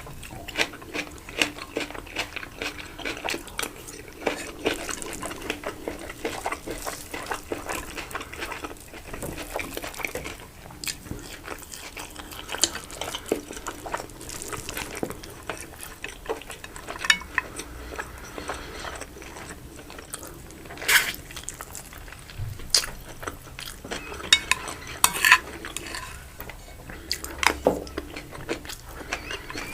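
Cutlery clinking and scraping against a plate during an eating-ASMR meal, a steady run of small clicks with a few sharper, louder clinks in the second half.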